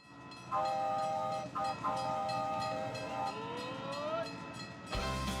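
Train sound effect: a multi-tone train horn blown twice, then a rising tone, over a steady rhythmic clatter. Music with a heavy bass beat comes in near the end.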